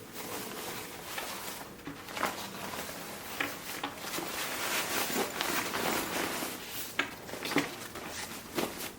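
Fabric rustling and handling noise as a packable soft-shell jacket is stuffed into a nylon daypack, with irregular light knocks throughout.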